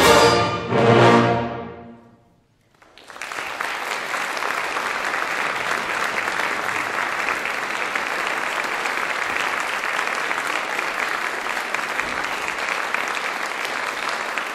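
Wind orchestra ends the piece on two loud final chords about a second apart, which ring out and fade within two seconds. After a short silence, the audience starts applauding about three seconds in and keeps up steady applause.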